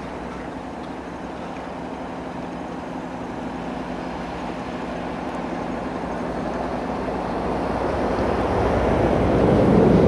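A river ferry's tug engine runs with a steady low hum, growing louder toward the end as the ferry comes in.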